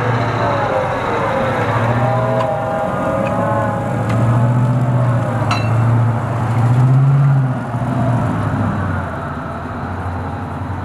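M2A3 Bradley Fighting Vehicle's turbocharged diesel engine running as the tracked vehicle drives off over mud; the engine note rises briefly about seven seconds in, then the sound fades as it moves away.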